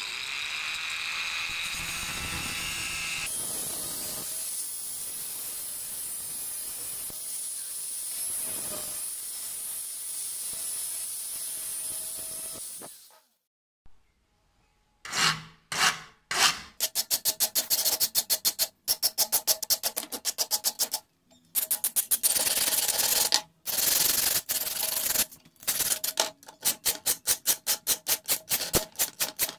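Steady hiss for about the first half, then, after a short pause, a hand file rasping back and forth across the steel knife blade clamped in a vise, at about two strokes a second.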